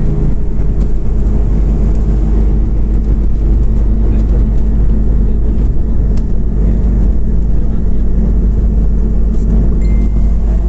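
Interior noise of a Scania OmniCity CNG city bus under way: the engine runs at a steady pitch over a heavy, even low drone of engine and road noise.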